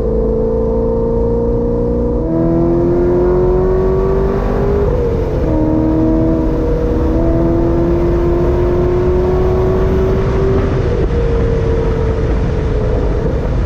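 Chevrolet Corvette C6 Z06's 7.0-litre LS7 V8 pulling hard under full throttle, heard from inside the cabin. It gets louder about 2 s in, its note climbing steadily, and the pitch drops back sharply twice, around 5 s and near 11 s.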